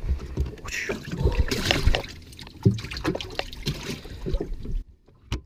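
Water splashing and sloshing in a boat's livewell as a walleye is put into it, with a few knocks from handling. The sound cuts off abruptly near the end.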